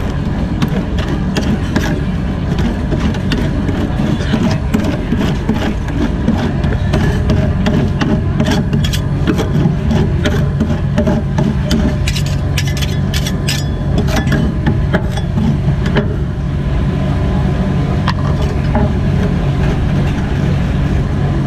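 Metal spatulas scraping and clicking against the frozen metal plate of a rolled-ice-cream stall as the mix is spread thin and scraped up into rolls, the strokes busiest about halfway through. A steady low hum runs underneath.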